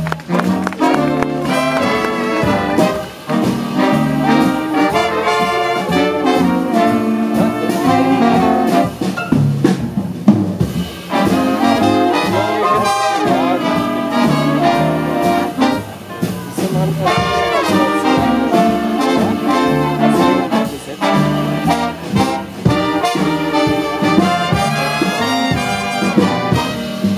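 Jazz big band playing live in full ensemble: trumpet, trombone and saxophone sections together over piano, double bass and drums.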